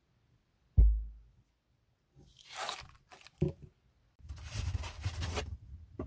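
A single low thump about a second in, then several bursts of crunching and rustling.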